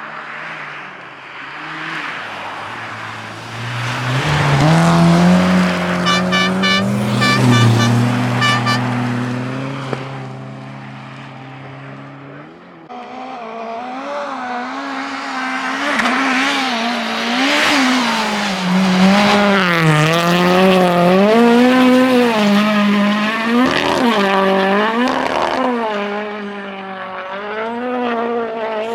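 Rally cars racing past one after another: the first engine builds up, passes and fades, then a second car's engine arrives about halfway through, its pitch rising and falling again and again as it revs up and lifts through the corners and gear changes.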